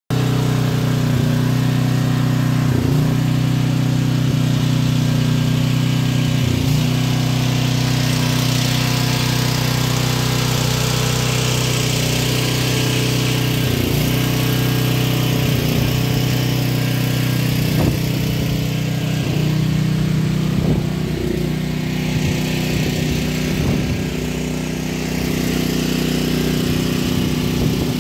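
A small engine running steadily at one constant speed, with a few brief knocks over it.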